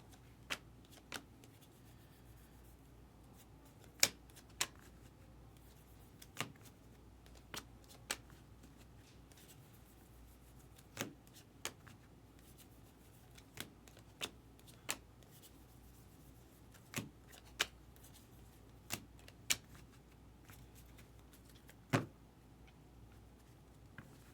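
Baseball trading cards being flipped through one at a time: light sharp snaps of card against card, often in pairs, every second or so, over a faint low hum.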